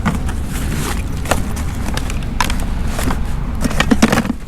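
Steady low rumble of engines or machinery in the background, with scattered light clicks and rustles of gear being handled, busier near the end.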